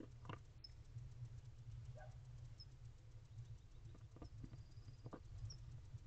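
A few faint scratches and rustles of wood-shaving nest litter as an incubating barn owl shifts on her eggs in the nest box, over a steady low hum.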